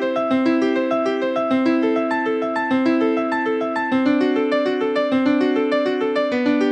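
Siemens Xelibri 1 polyphonic ringtone playing: an electric-piano-like melody of quick repeating note figures over a low held note that changes about every second.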